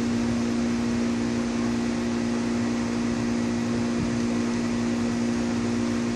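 Steady mechanical hum of a running machine, a few low tones held unchanged under a wash of noise.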